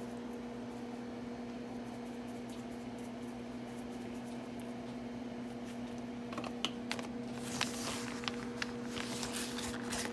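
A steady hum throughout, with a scatter of light clicks and taps starting a little past halfway.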